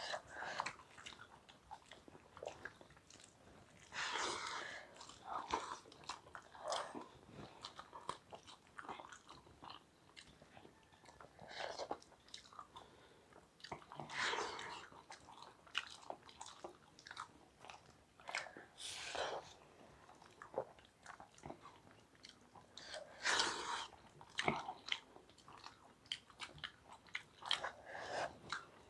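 Two people eating rice and fish curry by hand: chewing and biting, heard as irregular bursts of close, wet mouth sounds.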